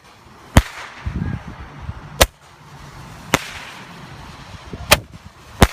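Hand-held Roman candle firing, five sharp pops about a second or so apart.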